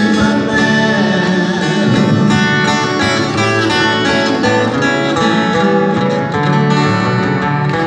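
Two acoustic guitars playing a Brazilian country (sertanejo) song, live through PA speakers.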